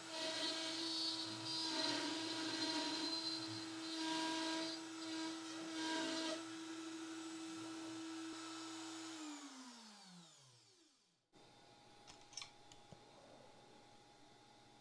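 Makita trim router on a CNC spinning at speed, its bit cutting a profile through plywood with uneven bursts of cutting noise. The cutting stops about six seconds in and the router runs free, then it is switched off and winds down with a falling pitch about nine seconds in, leaving near silence.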